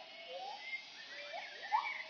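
Gibbons hooting: a chorus of overlapping rising whooping calls, each note sliding upward in pitch, repeated every half-second or so. This is the family's morning territorial call.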